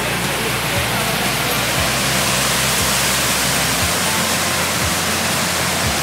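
Steady rushing of a small waterfall pouring over rock into pools. Background music runs underneath, with low bass notes and a soft beat about once a second.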